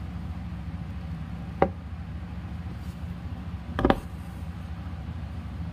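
Steady low background hum with two brief knocks of an embroidery hoop being handled on a table, a sharp one about one and a half seconds in and a louder double knock near four seconds in as the thread is drawn through.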